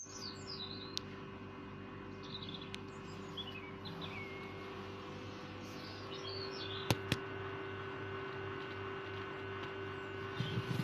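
Scattered high bird chirps over a steady low hum, with two sharp clicks about seven seconds in.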